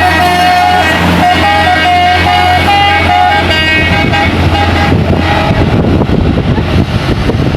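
Telolet bus horn playing a tune of short stepped notes over a bus's idling-to-running diesel engine. The horn stops about five and a half seconds in, leaving loud engine and road noise.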